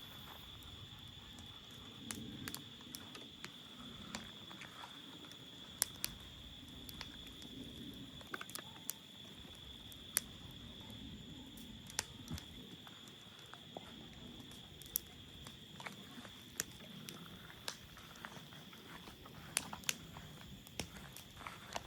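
A steady, high-pitched insect chirring runs throughout, with scattered sharp crackles and clicks at irregular intervals.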